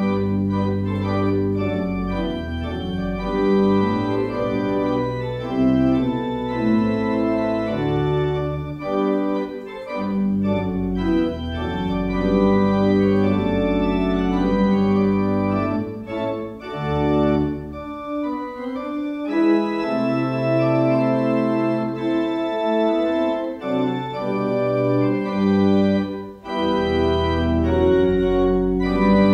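Organ music: full sustained chords over long held bass notes, the harmony changing every second or two. It starts abruptly out of near silence.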